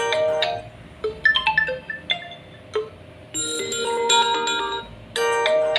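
Ringtone previews playing on a Realme 11 Pro 5G phone: several short chime-like melodies, each starting abruptly and breaking off after a second or so as different ringtones in the list are tried.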